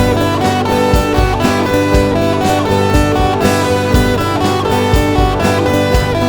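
Background music with a steady beat, guitar and horns.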